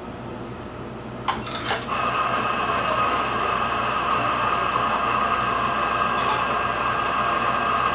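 Two short clicks, then a small electric motor starts about two seconds in and runs with a steady high whine.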